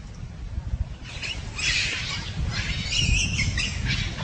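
Animal calls in two short bursts, about a second and a half apart, over a low steady rumble.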